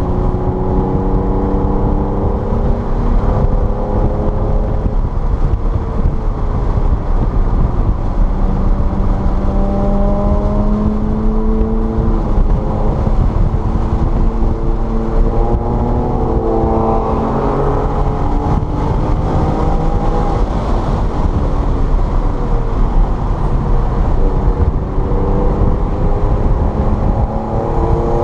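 Car engine accelerating hard through the gears: its pitch climbs again and again, dropping back at each shift or lift, over steady tyre and wind noise on a wet track.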